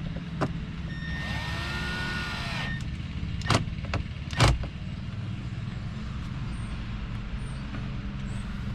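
A distant lawn mower engine runs steadily throughout. About a second in there is a short whir. Later come a few sharp clicks, the loudest two about a second apart.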